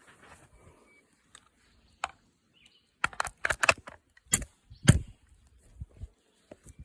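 Handling noise: a quick run of clicks, then two sharper knocks about half a second apart, the second the louder.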